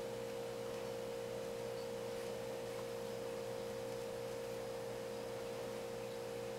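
A steady, unchanging hum: one constant pitch with fainter lower tones beneath it and nothing else, the kind of background whine that electrical equipment gives.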